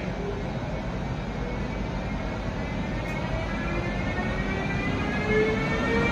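Siemens Vectron electric locomotive pulling away from the platform, over a low rumble. About halfway through, the whine of its traction equipment sets in, several tones rising together in pitch and getting louder as it gathers speed.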